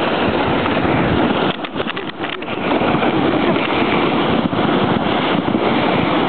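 Wind rushing and buffeting a small handheld camera's microphone as a steady loud noise, with a short lull and a few knocks about two seconds in.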